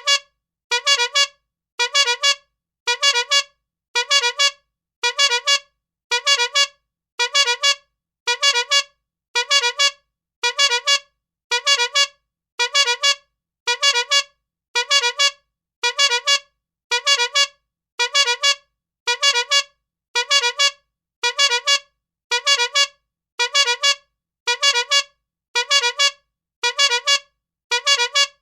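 Rubber-bulb bike horn (clown horn) honking over and over, a short nasal honk about once a second, each squeeze giving a quick double pulse.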